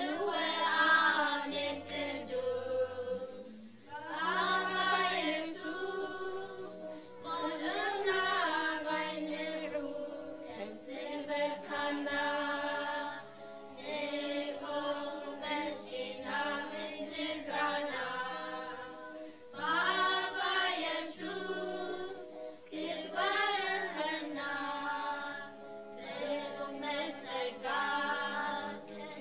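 A group of voices singing a worship song together.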